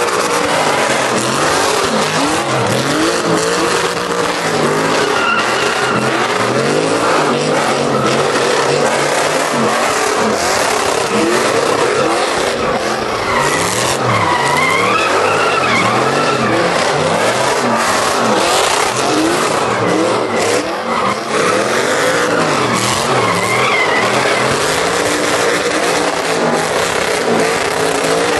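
Pickup trucks doing burnouts and donuts: engines revving up and down again and again while the rear tires spin and squeal on the pavement.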